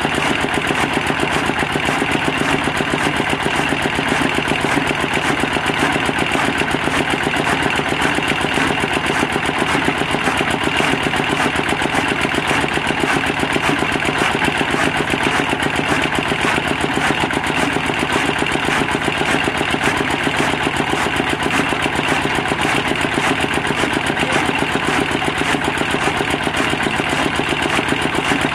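Single-cylinder stationary diesel engine running steadily, belt-driving a flywheel chaff cutter that chops green fodder as it is fed in, in a fast, even rhythm.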